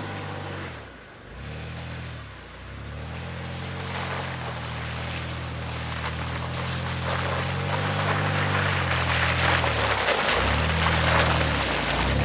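Lifted Toyota 4Runner driving up a snowy dirt trail toward the microphone, its engine note dipping twice in the first few seconds and then holding steady. Tyre noise through snow and slush grows louder as it comes close and is loudest near the end.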